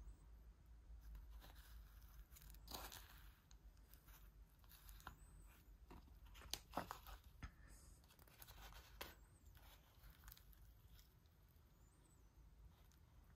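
Faint, scattered scrapes and clicks of a wooden spoon stirring through chocolate flakes and soft ice cream in a paper McFlurry cup, with light rustling of the paper cup in the hand.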